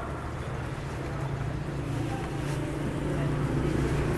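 A motor vehicle engine running steadily close by, growing louder toward the end.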